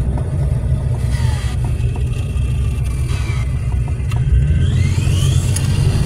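A car driving slowly, heard from inside the cabin: a steady low rumble of engine and tyres. A faint whine drops in pitch about a second in and rises again near the end.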